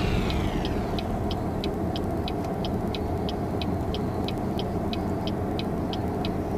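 Inside a car: the steady low rumble of the engine at idle, with a turn signal clicking evenly, about three clicks a second.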